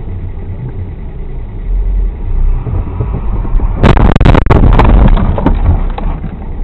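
Low road and engine rumble heard from inside a car, then about four seconds in a burst of loud crashing impacts lasting a second or two: a vehicle collision.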